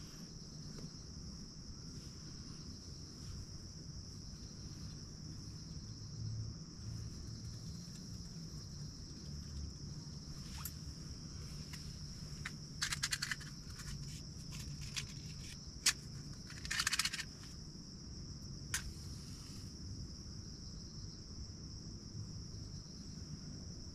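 Steady high-pitched chorus of insects, with a few brief rattles and sharp clicks from camp stove gear and utensils being handled, two short rattling clusters about halfway through.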